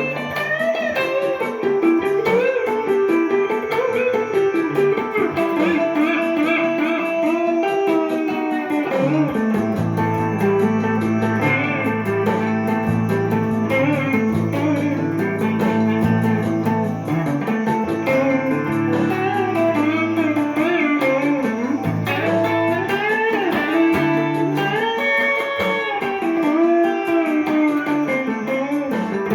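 Gibson ES-339 Custom semi-hollow electric guitar playing an improvised melody with a clean, jazzy tone and oriental, Indian-flavoured phrasing. From about nine seconds in, held low notes sound under the melody.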